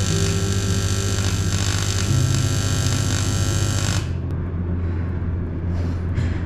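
AC TIG welding arc on aluminium sheet buzzing steadily over a low hum, cutting off suddenly about four seconds in as the arc is broken at the end of the bead; the low hum carries on after it.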